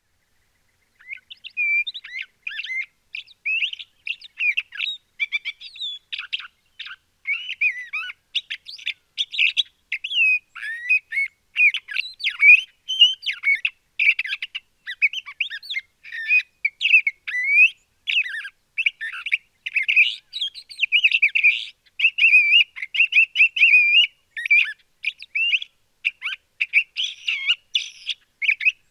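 LeConte's thrasher singing: a long, nearly unbroken run of short, varied phrases, many sliding up or down in pitch, starting about a second in.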